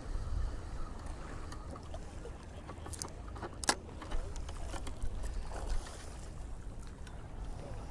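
Wind rumbling on the microphone over shallow water lapping at the shore, with a couple of sharp clicks about three seconds in.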